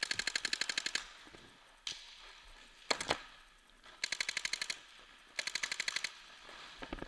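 Paintball marker firing rapid strings of shots, about a dozen a second, in three bursts of under a second each, with a few single sharp cracks between them.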